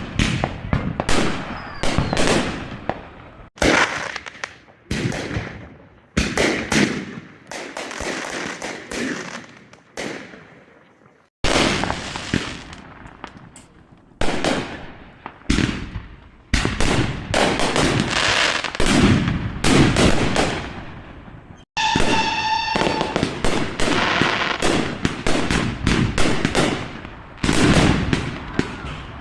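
Fireworks display: a dense run of loud bangs and crackling reports, one after another with short decaying tails, cut off sharply a few times between stretches. A short steady high tone sounds briefly about two-thirds of the way through.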